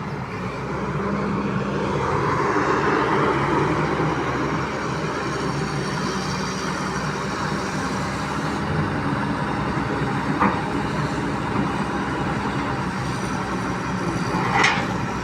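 Heavy diesel machinery engine running steadily, with a brief sharp sound about ten seconds in and a louder short one near the end.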